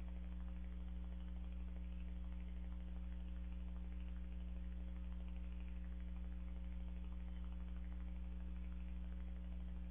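Steady electrical mains hum with a faint buzzing hiss, picked up on a surveillance camera's audio line.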